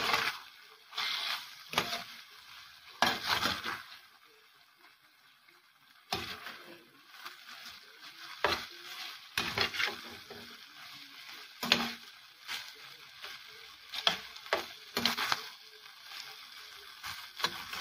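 Beef strips sizzling as they stir-fry in a stainless steel pan, with a spatula scraping and turning them in irregular strokes; the meat is nearly done. The stirring pauses briefly about four seconds in, then picks up again.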